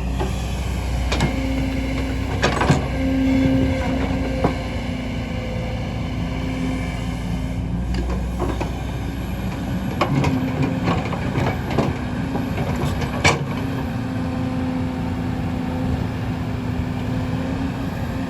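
Kobelco hydraulic excavator's diesel engine running steadily, with scattered sharp metallic clanks and knocks, the loudest about thirteen seconds in.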